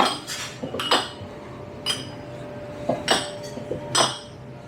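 Glassware and dishes clinking: about six sharp, ringing clinks at uneven intervals, the loudest near the start and about a second in, and again around three and four seconds in.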